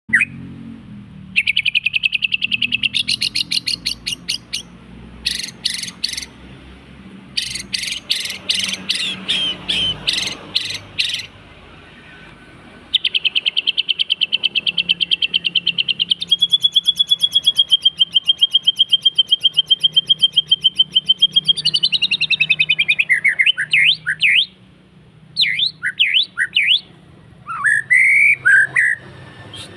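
White-rumped shama (murai batu) song used as a lure recording: fast trills of rapidly repeated notes broken by short pauses, a long unbroken trill in the middle, then looping whistled notes near the end.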